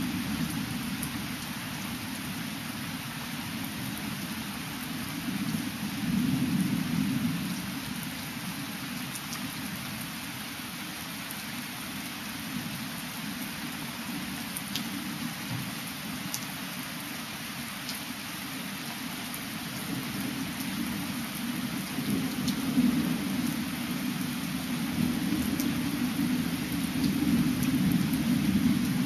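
Steady rain hissing with low rumbles of thunder, one swelling about six seconds in and a longer, louder roll building over the last several seconds.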